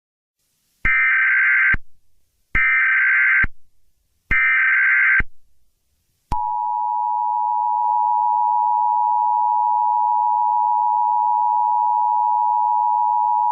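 Emergency Alert System SAME header: three short bursts of digital data tones, each just under a second long and evenly spaced, marking the start of a new alert. About six seconds in, the steady two-tone EAS attention signal begins and holds.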